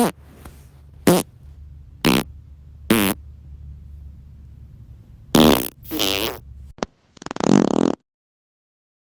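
A string of farts: four short blasts about a second apart, then two longer ones, and a long rattling fart near the end before the sound stops. A low hum runs under the first part.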